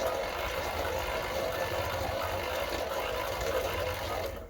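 Pedal-driven bicycle chain spinning a three-phase brushless DC motor used as a generator: a steady mechanical whir with a low rumble under it, cutting off suddenly near the end.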